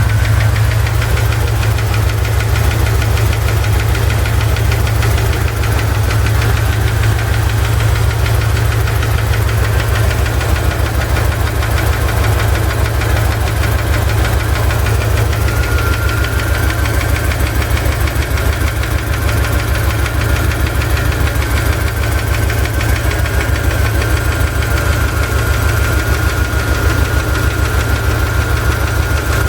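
Chevrolet ZZ4 350 small-block V8 running steadily with a persistent knocking tick from the driver's side, still there after a valve lash adjustment. The owner is unsure whether it is piston slap or a spun bearing. A faint steady high whine runs along with it and grows stronger about halfway through.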